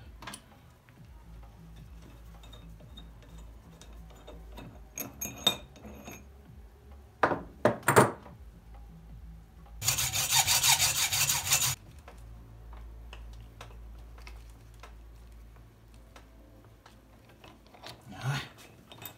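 Hacksaw blade rasping across metal for about two seconds near the middle, on the magnet assembly of a LOMO Kinap 4A32 loudspeaker being taken apart. Before and after it come sharp clinks and knocks of tools on the metal.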